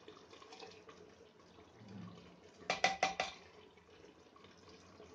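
A quick run of four or five metallic clinks a little under three seconds in, as a metal spoon knocks against an aluminium pressure cooker while thick spice paste is scraped into it. Faint wet scraping of the paste can be heard before and after.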